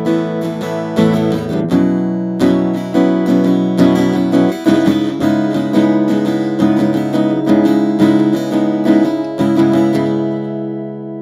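Veelah To Go SF 3/4-size acoustic guitar with a solid Sitka spruce top, strummed in repeated chords; near the end the strumming stops and the last chord rings out and fades.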